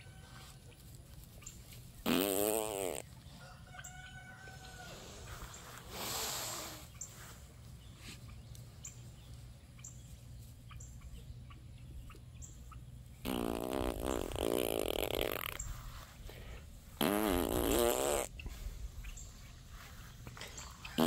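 Roosters crowing: three loud crows about two, thirteen and seventeen seconds in, the middle one the longest, with fainter calls between.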